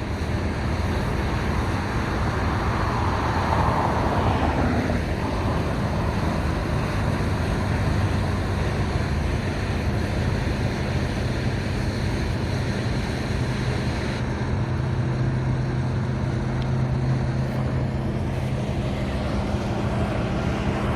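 Steady road traffic noise, with a vehicle passing a few seconds in, its pitch falling as it goes by, and a low engine hum later on.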